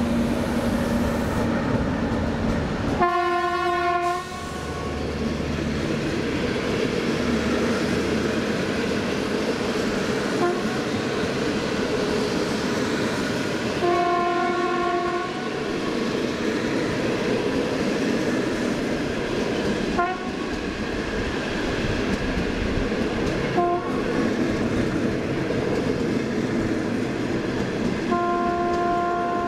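Passenger train hauled by an HXD3C electric locomotive passing close by, with a steady rumble and clatter of coach wheels on the rails. A one-note train horn sounds several times over it: a loud blast about three seconds in, another around fourteen seconds, two short toots around twenty and twenty-four seconds, and a longer blast near the end.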